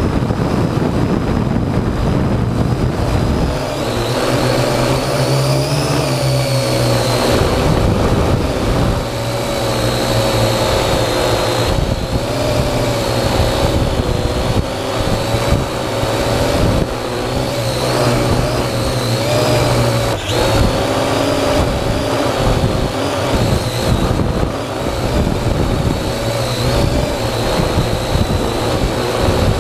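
Parrot AR.Drone 2.0 quadcopter's motors and propellers whining steadily, the pitch wavering slightly as the rotors change speed.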